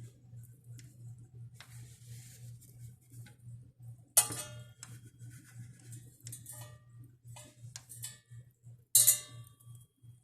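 Two short, sharp stifled sneezes, the first about four seconds in and the second near the end, each being held back, with fainter breathy sounds before them.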